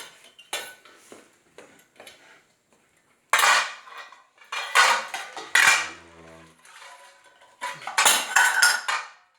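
Dishes and cutlery clattering and clinking in irregular bursts, the loudest a few seconds in and again near the end. There is a brief low hum about six seconds in.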